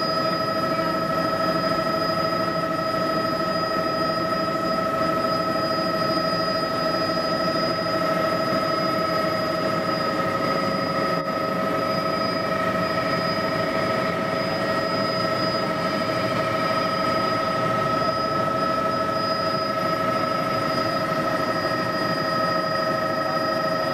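Helicopter in flight heard from inside the cabin: a steady engine and rotor drone with several constant whining tones over it.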